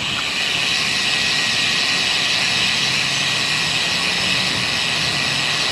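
Steady rushing noise of wind and passing traffic, heard from a road bike while riding, with the faint hum of a vehicle engine from about two to five seconds in.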